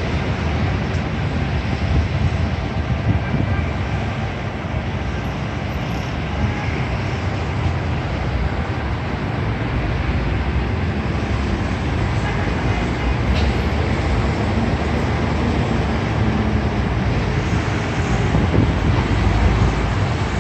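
Steady street traffic from cars and motor scooters driving past below: a continuous deep engine and tyre rumble.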